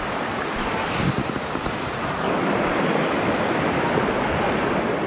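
Steady, loud rush of fast-flowing river water.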